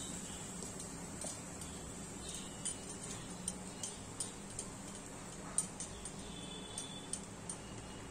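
Light, irregular clicks and taps of thick ground coconut paste being scraped out of a plastic mixer-grinder jar into a pan, over a faint steady low hum.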